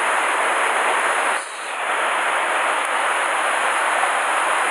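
Mountain stream rushing over rocks: a steady hiss of water that dips briefly about a second and a half in.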